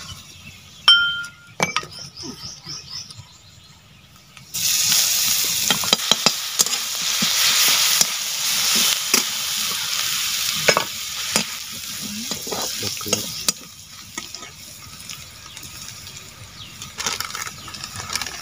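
Chopped garlic and sliced onion frying in hot oil in an iron kadai. A loud sizzle starts suddenly about four seconds in as the garlic goes into the oil, with a steel spatula scraping and stirring. The sizzle settles lower for the last few seconds.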